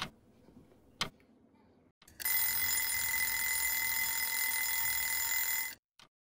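Mechanical wind-up kitchen timer: two ticks about a second apart, then its bell goes off and rings loudly and steadily for about three and a half seconds before cutting off sharply, signalling the timer has run down.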